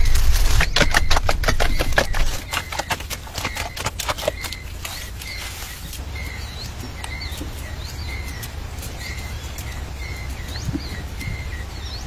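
A bird repeating one short chirp about every two-thirds of a second. For the first four seconds, leaves and twigs rustle and snap as a monkey climbs through a tree, over a low rumble that dies away after about two seconds.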